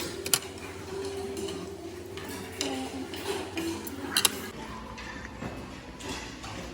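Cutlery clinking and scraping against dishes during a meal, with a few sharp clinks.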